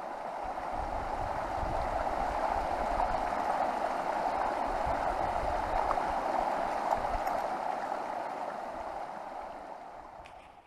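Rushing stream water, a steady rush that swells in over the first couple of seconds and fades out near the end.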